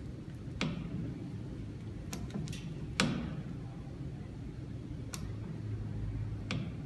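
Lever-type collet closer on a JET metal lathe clicking and knocking as its handwheel and handle are worked, set hand-tight and then its tension loosened. About five sharp clicks, the loudest about three seconds in, over a low steady hum.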